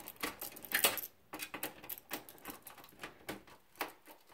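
Precision screwdriver turning a fan screw in a steel computer case: a run of small irregular metal clicks and light scrapes, with a denser flurry about a second in. The screw is free-spinning rather than biting tight.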